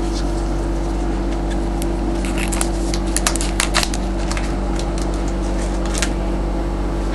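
Trading cards and their packaging being handled: scattered crinkles, rustles and light clicks, busiest a couple of seconds in, over a steady electrical hum.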